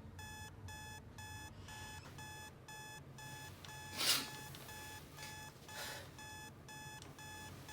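Digital alarm clock going off: a steady run of short, high electronic beeps, about two a second. A brief rushing noise cuts in about four seconds in, and a fainter one near six seconds.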